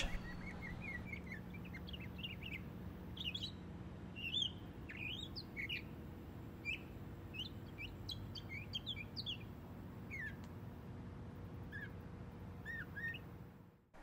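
Northern mockingbird singing: a long, faint string of varied short chirps and whistles, its phrases copying the songs of other birds, over a low steady hum.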